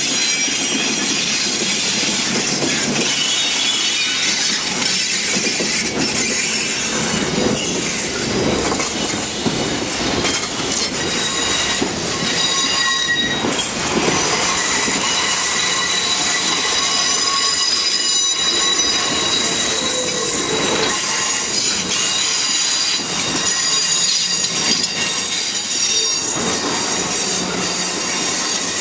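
Passenger coaches of a diesel-hauled excursion train rolling past close by, loud and steady, their steel wheels squealing in high, shifting whistles as they take a curve, with scattered clicks from the wheels over the rail.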